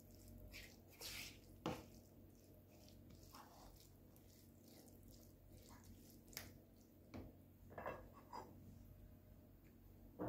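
Faint, scattered scrapes and light taps of a silicone spatula stirring cooked rice in a nonstick frying pan.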